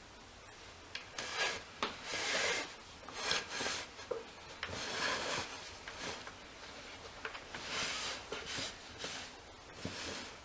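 Fabric sling being pushed down over the dowels: a run of irregular rubbing, scraping swishes with a few light knocks, starting about a second in.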